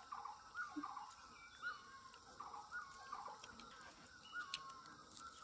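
Faint bird calls: a series of short repeated notes, about two or three a second.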